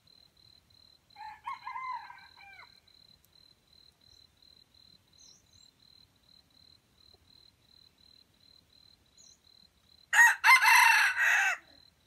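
Junglefowl roosters crowing twice: a fainter crow about a second in and a much louder, closer crow near the end. A steady pulsing insect call runs underneath.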